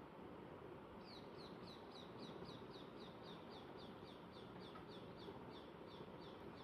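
A small bird chirping: a run of short, high chirps, each dropping in pitch, about three a second, starting about a second in over a faint steady background hiss.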